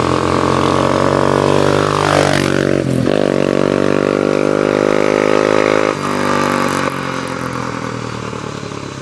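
1995 Yamaha Warrior 350 ATV's single-cylinder four-stroke engine running through a DG full exhaust. The engine note dips and glides about two to three seconds in, then holds steady, and drops and fades over the last two seconds.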